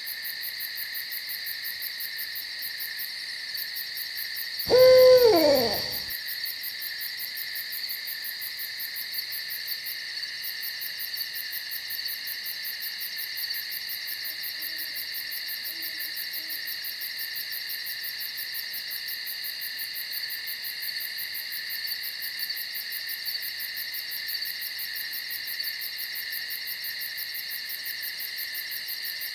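An owl gives one loud hoot about five seconds in, falling in pitch as it ends, over a steady, high-pitched chorus of insects.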